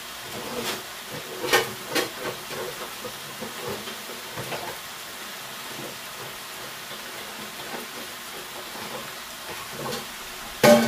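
Vegetables sizzling in a casserole pot on the hob, a steady hiss as they brown. A few sharp clicks come about a second and a half and two seconds in, and a louder knock just before the end.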